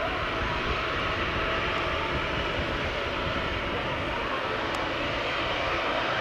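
Airbus A319 jet engines running steadily as the airliner taxis along the runway, a constant roar with no rise in thrust.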